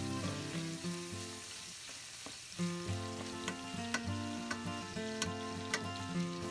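Onion, garlic and tomato sizzling in rendered pork fat in a hot pan while being sautéed and stirred, with a few sharp pops of spattering fat. Background music plays along.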